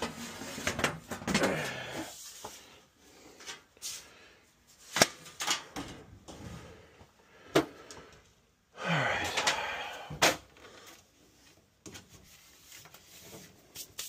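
Handling noises in a cramped space: scattered sharp knocks and clicks, the loudest about five seconds in and again near seven and a half and ten seconds, with rustling between and a short, louder scraping rustle about nine seconds in.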